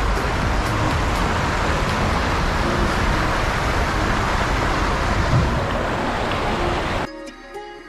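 Steady rush of falling water from an artificial waterfall, cutting off abruptly about seven seconds in, where background music begins.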